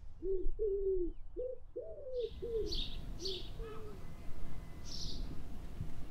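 A dove cooing in a run of short, arched notes that stops about four seconds in. Small birds chirp in short high notes from about two seconds in.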